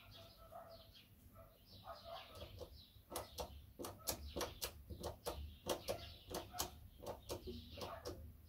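Small birds chirping in quick, repeated short calls that grow busier after about three seconds, over a faint steady low hum.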